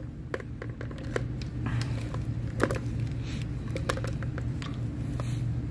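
Small handling sounds of a plastic wiring plug and cable being fitted: scattered light clicks and rustles over a steady low hum.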